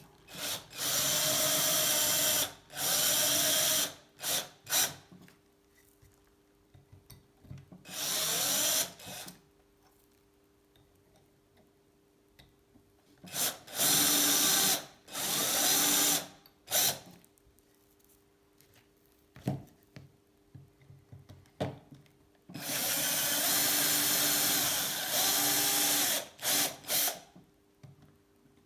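Electric drill running in repeated bursts of one to three seconds, with short trigger blips between them, boring 3.2 mm lightening holes into a bicycle seat post. Its pitch climbs as the motor spins up in several bursts.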